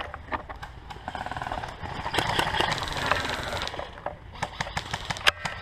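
Footsteps moving over rough ground with scattered clicks, and two short rapid rattling bursts of full-auto fire from an airsoft electric gun.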